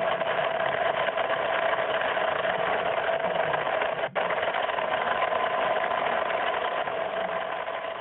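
A boat's engine running steadily: a constant mechanical whir with a steady hum in it, broken by a brief drop about four seconds in and growing fainter near the end.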